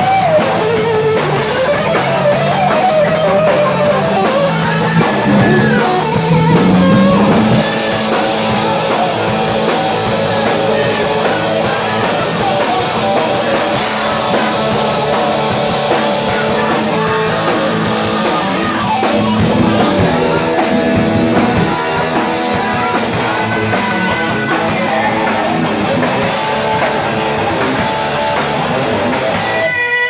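Live rock band playing loud: distorted electric guitars, bass guitar and drum kit, with a lead guitar line bending in pitch in the first several seconds.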